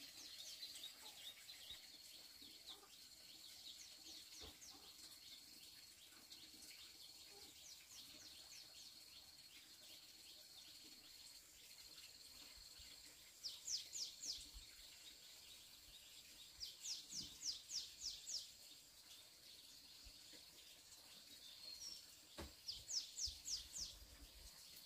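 Faint birdsong over a quiet room: three short runs of quick, high, falling chirps, about halfway through, a few seconds later, and near the end, over a faint steady high-pitched tone.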